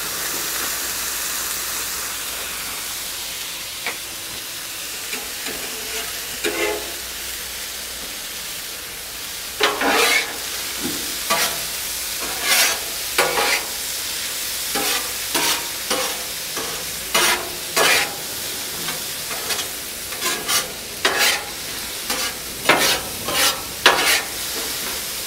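Chicken with frozen peas and carrots frying on a Blackstone flat-top griddle, a steady sizzle. From about ten seconds in, a spatula scrapes and stirs the food across the griddle top in quick, repeated strokes over the sizzle.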